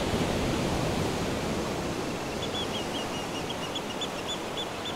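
Steady rush of surf-like noise, with a run of quick, high chirps repeating several times a second from about two seconds in.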